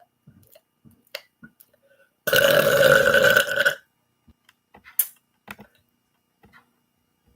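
One long, loud burp lasting about a second and a half, starting a couple of seconds in. Faint clicks and small mouth sounds come before and after it.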